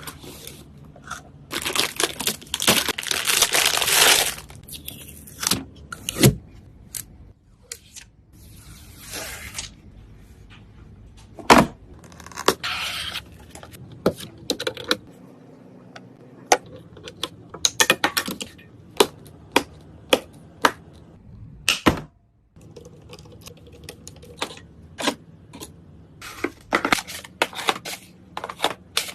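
Computer parts being handled in a small room: a run of sharp plastic clicks and knocks, with several stretches of packaging rustling and tearing.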